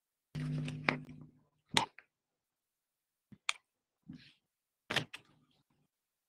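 A short low hum about half a second in, then a handful of sharp single clicks and small knocks spread over the next few seconds.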